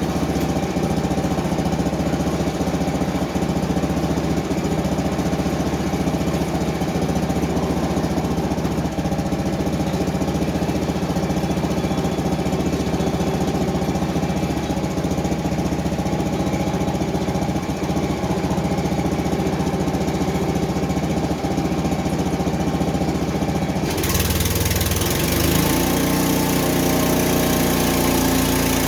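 Frontier OS23 portable sawmill's small engine, about 7 horsepower, running steadily. About 24 s in the sound changes abruptly across the whole range and the engine note shifts in pitch.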